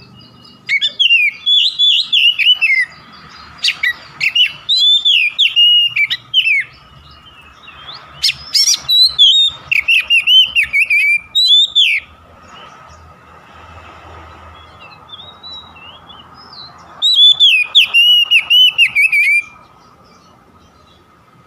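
Oriental magpie-robin (kacer) singing loud bursts of rapid, sliding whistled notes, some of them harsh. It sings four phrases of a few seconds each, with pauses between. A faint steady hum lies underneath.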